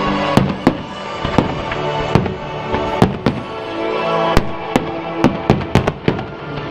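Fireworks bursting in the air, about a dozen sharp bangs at irregular spacing, coming thicker near the end, over music played with the show.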